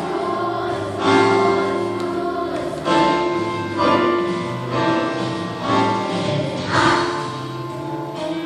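A choir singing a Christian song in sustained notes, with musical accompaniment.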